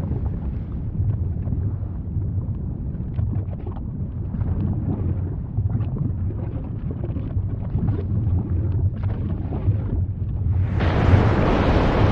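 Volcanic eruption sound: a steady deep rumble with scattered small crackles. About eleven seconds in, a louder rushing hiss sets in over it.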